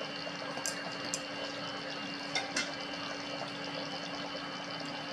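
Curry simmering in a kadhai on a gas stove: a steady bubbling hiss with a few small sharp pops, about a second in and around two and a half seconds in.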